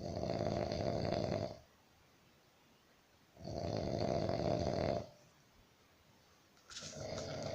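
A person snoring: long snores of about a second and a half each, roughly every three and a half seconds, with quiet between. The third snore begins near the end.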